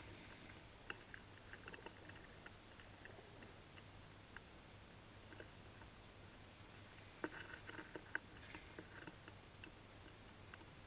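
Pigeons pecking seed off a hard window ledge: faint, scattered sharp taps, with a quicker run of taps about seven seconds in.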